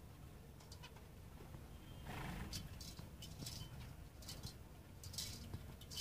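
Aviary finches giving short, scattered high chirps and clicks over a steady low hum, with a louder flurry about two seconds in.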